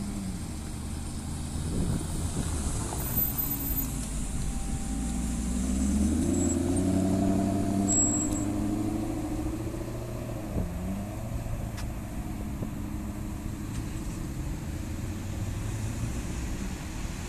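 Maserati GranTurismo S's 4.7 V8 exhaust as the car pulls out and accelerates away, the engine note rising in pitch about five to eight seconds in, then running steadier amid passing traffic.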